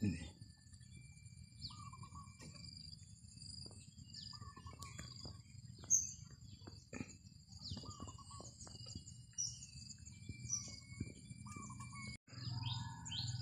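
Outdoor birdsong: one bird repeats a short call every couple of seconds over a steady high-pitched whine and a low hum. A few sharp clicks come around the middle, and the sound drops out briefly near the end.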